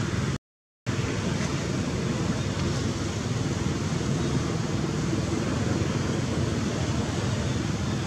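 Steady rushing outdoor background noise, without distinct calls or knocks, that cuts out completely for about half a second near the start.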